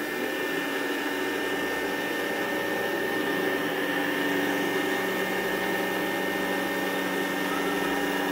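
Rainbow vacuum's motor running steadily with a high whine, drawing through the AquaMate carpet shampooer head as it is pushed over carpet on the wash (soap) cycle.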